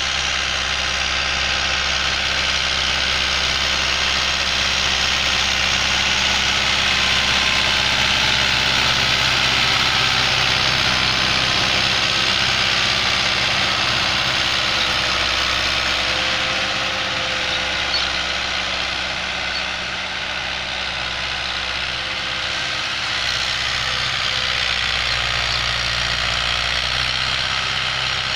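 Fiat 640 tractor's diesel engine running steadily as it pulls a tine cultivator through the field, loudest in the first half as it passes close, then easing off as it draws away.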